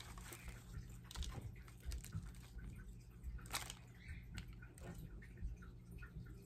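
Handling a syngonium's damp soil root ball and its plastic wrap: irregular soft squishes, crumbling and crinkling, with one sharper crackle about three and a half seconds in. A low steady hum runs underneath.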